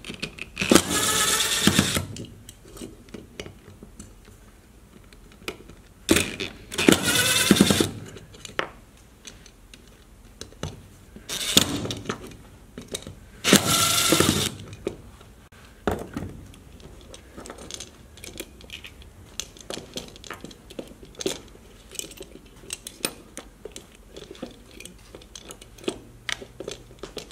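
DeWalt cordless driver running in four short bursts of a second or so, backing the screws out of a hedge trimmer's muffler cover. Light metallic clicks and rattles of screws and small parts come between the bursts.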